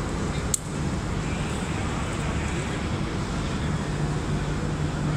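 Steady background noise of a large exhibition hall, a low even hum and rumble, with a single sharp click about half a second in.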